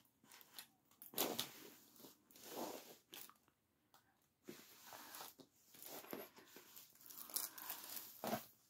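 Faint, irregular rustling and crinkling as a diamond painting canvas and its glossy plastic cover film are handled and shifted.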